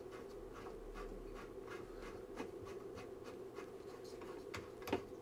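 Coax cable connector being screwed onto an amplifier's RF port by hand: faint scratchy clicks of the threaded coupling nut turning, about three a second, with a few sharper clicks near the end as it seats. A steady low hum of bench equipment runs underneath.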